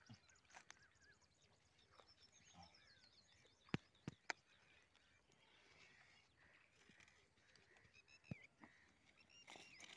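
Near silence with faint bird chirps in the background, broken by a few sharp clicks: three close together about four seconds in and one more a little past eight seconds.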